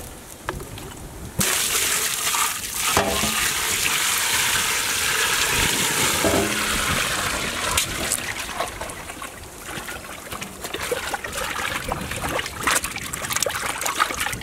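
Water poured from a plastic pot into a large aluminium vessel of whole red pomfret: a steady, splashing pour that starts abruptly about a second and a half in. Later, hands slosh and rub the fish in the water with choppy splashes.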